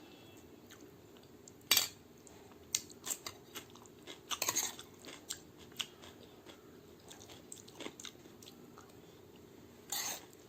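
A person eating chole bhature with raw onion, chilli and cucumber, chewing with crisp crunching bites: a loud crunch about two seconds in, a cluster of crunches around four and a half seconds in and another near the end, with softer chewing clicks in between.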